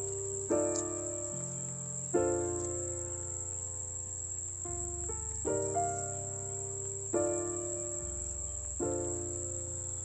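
Mellow instrumental background music, soft chords struck about every one and a half seconds, over a steady high-pitched tone.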